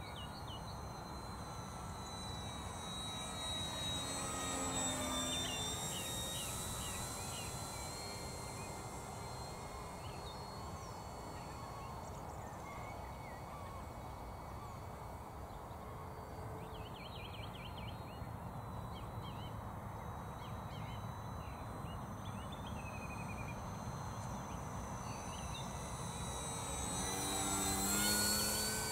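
Electric motor and propeller of a Durafly Tundra RC model plane whining faintly at a distance, then growing louder as it makes a low fly-past near the end, the pitch dropping as it goes by.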